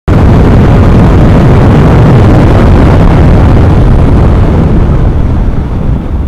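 Loud wind noise buffeting a motorcycle helmet camera's microphone at highway speed, with engine and road noise underneath. It cuts in suddenly and eases off near the end as the bike slows.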